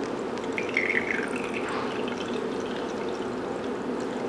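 Vermouth poured from a glass bottle in a thin stream into a small steel jigger, trickling steadily as the jigger fills.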